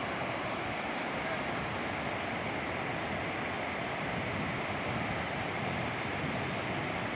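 Ocean surf breaking on a sandy beach: a steady, even wash of waves.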